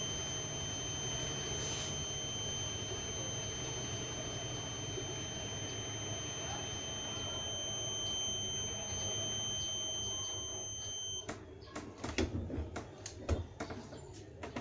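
Heat press during its timed pressing cycle: a steady high-pitched electronic tone over a low hum, cutting off abruptly about eleven seconds in as the countdown timer runs out. A quick series of clicks and knocks follows as the press is opened and the garment handled.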